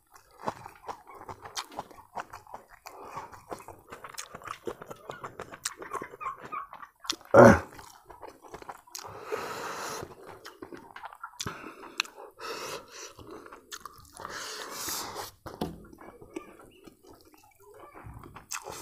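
Close-up chewing and lip-smacking of a man eating duck biryani by hand, with small clicks and wet mouth sounds throughout. About seven and a half seconds in there is one brief, much louder bump.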